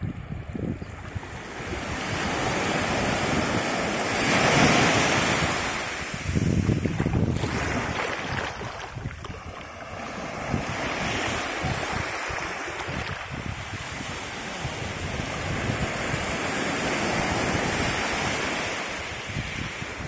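Small waves washing up the beach in slow swells that rise and fade every several seconds, with wind buffeting the microphone.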